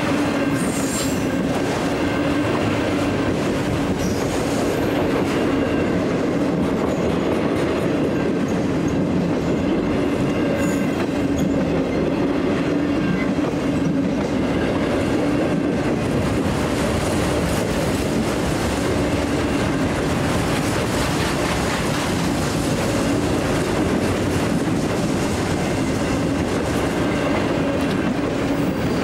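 Freight cars of a Canadian National train rolling past at speed: a steady rumble of wheels on rail, with clicking over the joints and faint wheel squeal.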